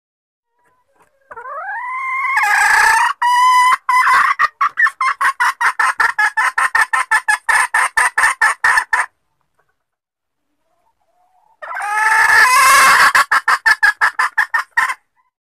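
Junglefowl hen calling, played as a lure recording to draw in wild junglefowl: a rising note that runs straight into a fast, even series of clucks, about five a second, stopping about nine seconds in. A second, shorter call of the same kind starts near the end.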